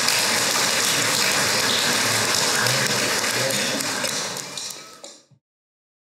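Church congregation applauding, a dense even clapping that fades out about five seconds in.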